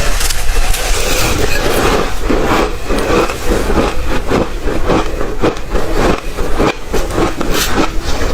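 Ice being chewed close to the microphone: a quick, even run of loud crunches, about three a second.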